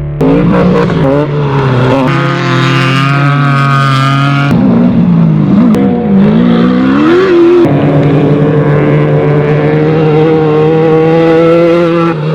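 Off-road race vehicle engines running and revving, pitch climbing and dropping in the middle, in a run of short clips that change abruptly every few seconds.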